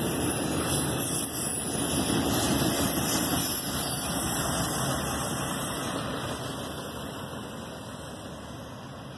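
Intermodal freight train's wheels rolling on the rails as its trailer-carrying flatcars pass. The noise fades steadily over the last few seconds as the train moves away.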